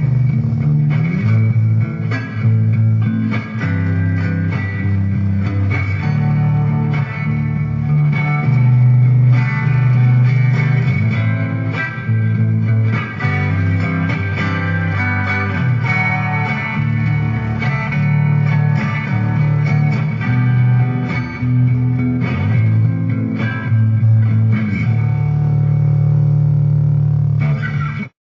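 Guitar music, plucked strings playing a rock-style riff with strong low notes that change every second or so. It stops abruptly near the end.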